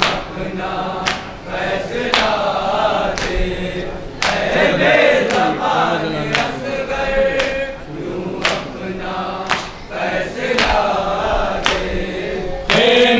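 Men's chorus chanting a Shia noha (lament) together, the held melodic lines rising and falling, with a sharp beat about once a second from matam, hands striking chests in time. The voices swell louder near the end.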